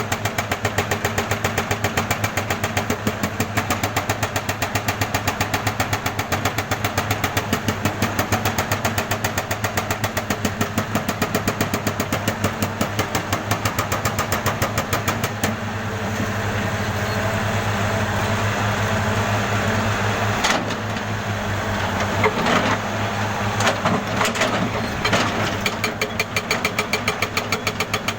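Jackhammer hammering in a rapid, even run of blows. About halfway through the blows stop, giving way to steadier noise with a few sharp knocks, and they start again near the end.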